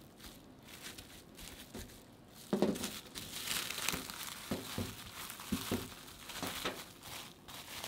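Plastic cling film crinkling and rustling as hands fold it tightly around a slice of pizza toast. It starts about two and a half seconds in and carries on as an uneven run of crinkles.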